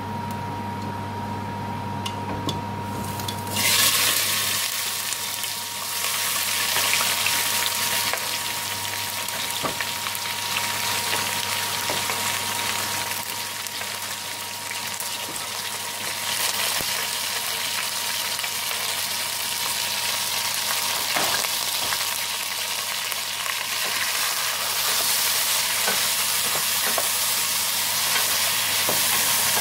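Hot vegetable oil with fennel seeds ticking faintly in an aluminium pot, then about four seconds in chopped onions, whole spices and frozen garlic-ginger cubes are tipped in from a wooden board and the oil breaks into loud, steady sizzling. A wooden spoon stirs the frying onions near the end.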